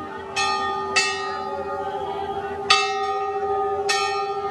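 Hanging metal temple bell rung by hand, struck four times at uneven intervals, each strike ringing on, over a steady hum.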